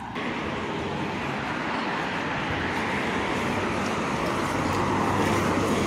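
Road traffic going by: steady tyre and engine noise from passing cars, growing a little louder near the end.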